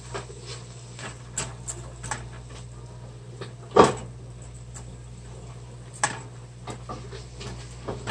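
Kitchen utensils and a plastic tub clicking and clattering now and then as spinach is handled, with one louder knock about four seconds in. A steady low hum runs underneath.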